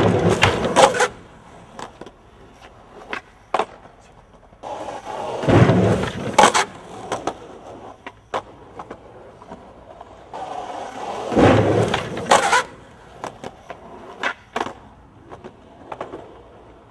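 Skateboard wheels rolling on hard ground, then the board clacking and slapping down, three times over, with scattered single clacks of the board between.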